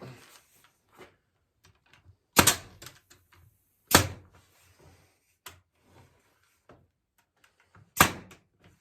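Three loud, sharp wooden knocks, with small clicks and taps between them, as barn-wood slats are fitted into a chair back.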